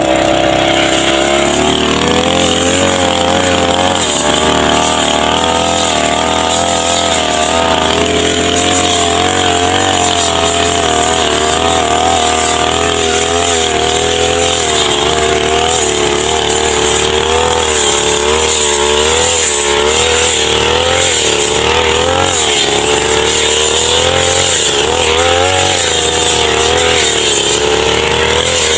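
Brush cutter's small petrol engine running at high revs, its pitch wavering up and down again and again.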